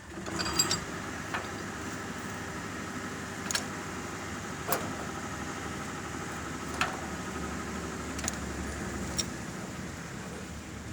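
A machine runs with a steady hum, broken by several sharp clicks.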